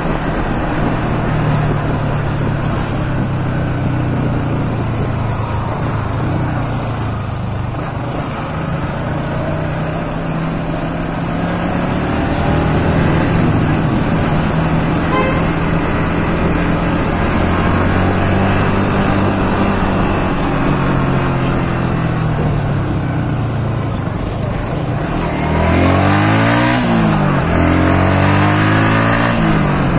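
Motorcycle engine running steadily under way, with wind and road noise over the microphone. Near the end the engine pitch rises and falls several times as the revs change.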